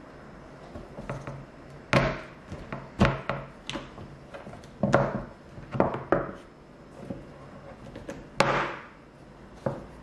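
A series of sharp knocks and clatters as objects are handled and set down on a wooden cutting board, about eight strikes at uneven intervals, the loudest about eight and a half seconds in.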